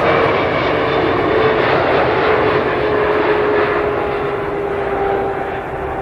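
Passenger jet airliner's engines running loud and steady, with a whine in them that glides slowly down in pitch. The sound eases a little toward the end.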